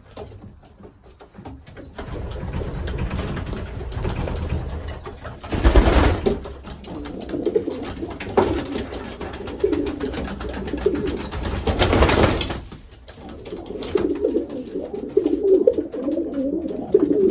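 Racing pigeons cooing, a courting pair trying to pair up: repeated low coos, heaviest in the second half. Two loud rustling rushes, about six and twelve seconds in, stand out above them.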